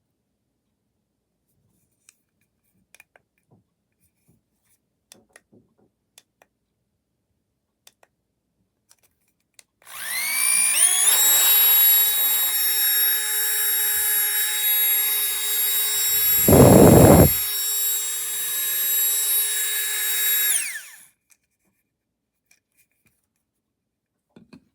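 Small electric air pump's fan motor spinning up with a rising whine, running steadily for about ten seconds with a brief loud rush of air partway through, then switching off. Light handling clicks come before it starts.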